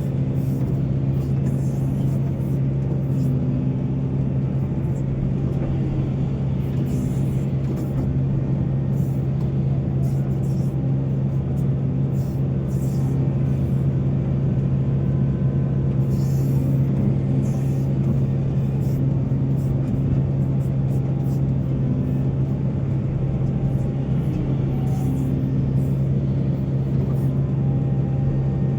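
Heavy diesel engine of mining machinery running steadily at a constant pitch, with scattered short clicks and knocks over it.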